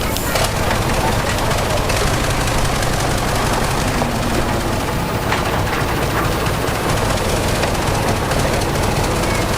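Heavy diesel earthmoving machinery running hard, a steady loud engine noise with a fast, dense rattling clatter.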